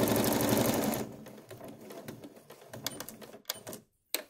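Sewing machine stitching rapidly through fabric, then stopping about a second in; quieter handling sounds and a few sharp clicks follow.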